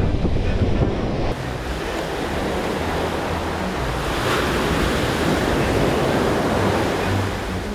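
Ocean surf breaking on a beach, a steady rushing wash with wind on the microphone. A wave crashes loudest about four seconds in.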